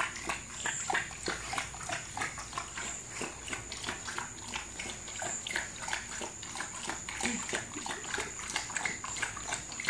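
American Bully puppy lapping water from a stainless steel bowl: rapid, repeated wet laps and splashes against the metal.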